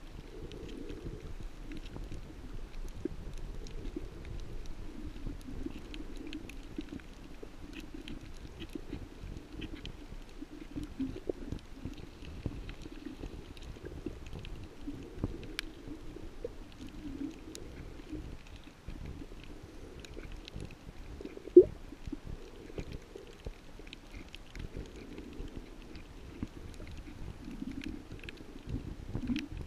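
Muffled underwater sound picked up by a camera in its waterproof housing: a low, uneven rumble of moving water with faint scattered clicks. One sharp knock stands out about two-thirds of the way through.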